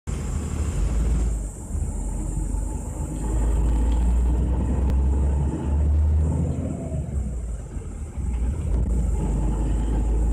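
Vehicle moving slowly down a street: a steady low engine and road rumble, heard from inside the vehicle.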